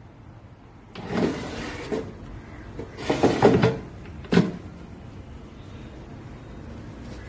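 Tefal Easy Fry & Grill air fryer's basket drawer sliding in its housing in two scraping strokes. It ends with a sharp click as it shuts, about four seconds in.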